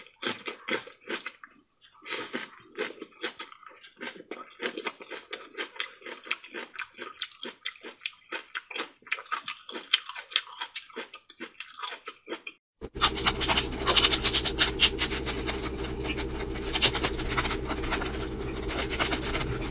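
Close-miked chewing and slurping of a big mouthful of chili-soaked enoki mushrooms wrapped in a napa cabbage leaf: a fast, uneven run of wet mouth clicks and smacks. About 13 seconds in, it switches to a steady low hum with denser eating noises over it.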